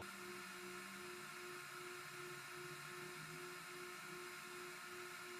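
Faint steady hiss with a low electronic hum pulsing on and off about twice a second.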